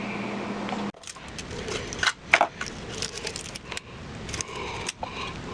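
A steady faint hum for about a second, then a series of sharp clicks and light metallic rattles as an Arduino Nano on a mini breadboard is handled and set into a helping-hands alligator clip for soldering.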